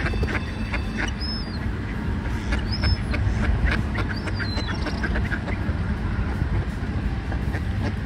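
Mallard ducks quacking in a flock, with three short, high, falling calls about a second and a half apart, over a steady low rumble.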